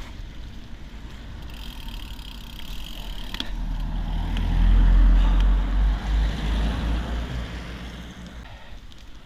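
A motor vehicle passing, its engine and tyre noise swelling to a peak about five seconds in and then fading away.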